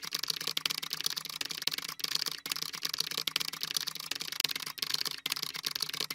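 Typing sound effect: a fast, continuous run of key clicks.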